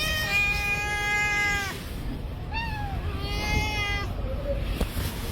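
A cat meowing three times: a long, drawn-out meow, a short falling one, then another of about a second.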